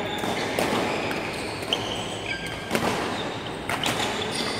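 Badminton rackets striking shuttlecocks, a handful of sharp hits about a second apart, with sneakers squeaking briefly on the court floor.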